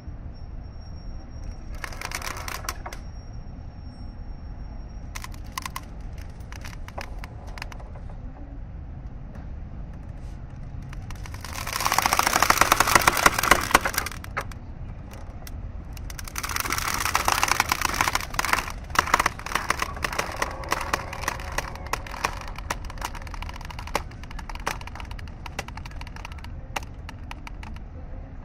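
Mooring rope creaking under strain: bursts of rapid crackling creaks, the loudest two coming about twelve and seventeen seconds in, then scattered single creaks, over a steady low rumble.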